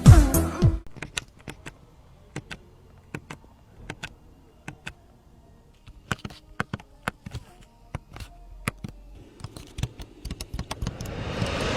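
Background music cuts off less than a second in, followed by scattered, irregular sharp clicks and taps. Near the end a rush of noise swells up.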